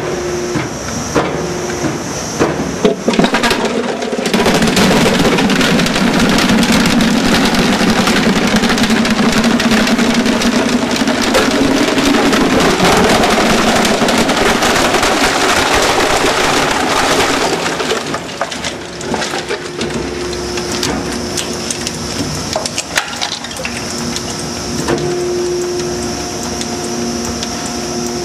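Cumberland CXS 1200 shredder's rotor running with a steady whine while heavy-duty nylon buckets are fed in. From about four seconds in, it breaks into loud, continuous crunching and cracking of the plastic for about fourteen seconds, then eases back to the running rotor with scattered cracks.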